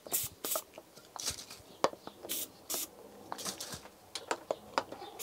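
Several short hissing bursts of PlusGas penetrating oil from an aerosol can, mixed with light clicks and knocks of handling.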